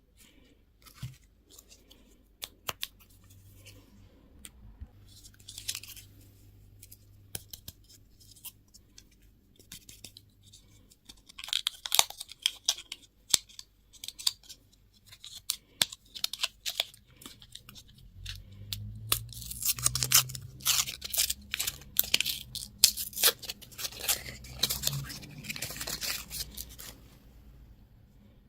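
Plastic wrapping crinkling and tearing as candy or toy packaging is opened, with scattered sharp clicks at first and dense crackling bursts near the middle and through most of the last third.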